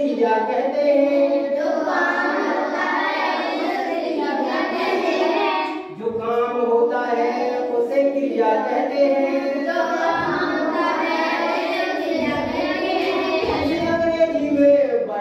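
Children's voices singing together in a sing-song chorus, with a brief break about six seconds in.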